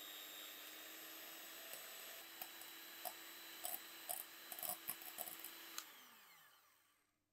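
Electric hand mixer running steadily, its twin wire beaters whipping egg whites in a ceramic bowl, with a few light clicks. Near the end the motor is switched off and winds down, its pitch falling as it fades out.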